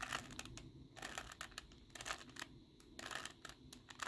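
Plastic Rubik's Cube layers being turned by hand, faint clicking and clacking in quick clusters about once a second as the right-hand move sequence is repeated.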